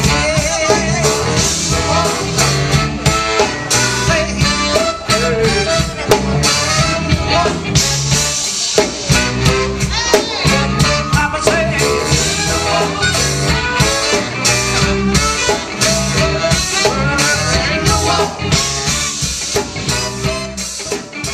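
A live horn band playing an upbeat instrumental tune, with horns over a steady drum-kit beat.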